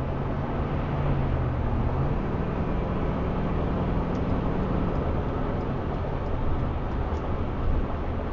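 Road and tyre rumble inside the cab of a 2008 Ford F-150 cruising at about 60 mph, with a low steady drone that steps up in pitch about two seconds in.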